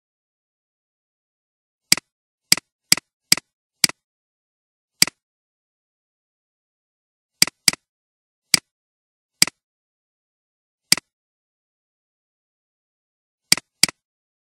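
Computer mouse clicks: about a dozen short, sharp clicks at irregular intervals, some in quick pairs, with silence between them.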